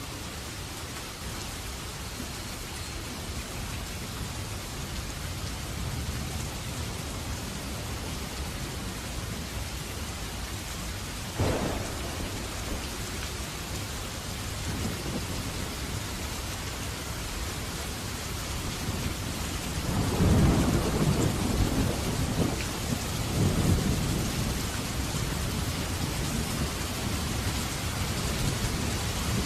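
Steady heavy rain with thunder: a sharp crack about eleven seconds in, then a long low rumble rolling for several seconds about twenty seconds in.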